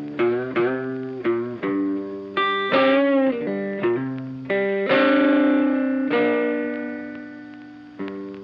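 Funky background music led by an electric guitar with effects: a run of plucked notes with a wavering bend about three seconds in, then a chord that rings out and slowly fades.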